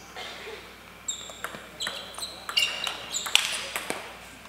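Table tennis rally: the celluloid ball clicking sharply off the paddles and the table in quick alternation, roughly every half second, with short high squeaks from shoes on the hall floor.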